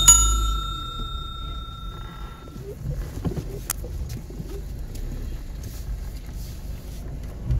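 A small hard object is struck once and rings with a clear, bright tone that fades over about two and a half seconds, over a steady low background rumble.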